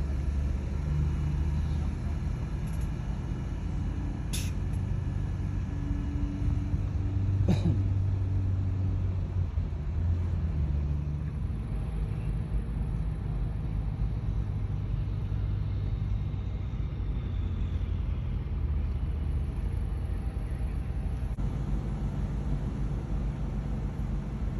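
A motor vehicle's engine running at low speed with a steady low rumble, its pitch shifting a little now and then. There is a sharp click about four seconds in and a short falling squeak a few seconds later.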